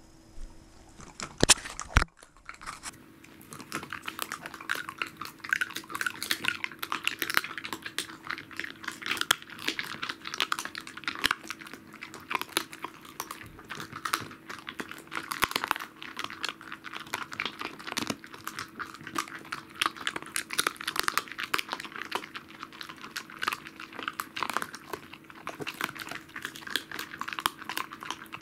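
A Pembroke Welsh corgi crunching and chewing salmon backbone, a dense run of irregular crackling crunches. Two sharp knocks come about a second and a half and two seconds in, just before the chewing starts.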